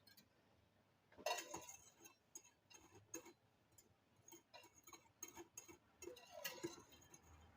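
Faint, scattered clicks and light clinks of a glass mason jar being handled, with a louder cluster of taps about a second in.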